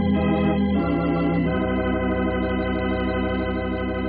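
Organ music, likely a Hammond, playing sustained chords that shift about a second in and again a moment later, then settle into one long held chord.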